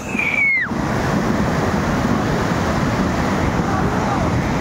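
Flash-flood mudflow torrent rushing past, a loud, steady churning noise of fast muddy water. A brief high-pitched voice cries out near the start.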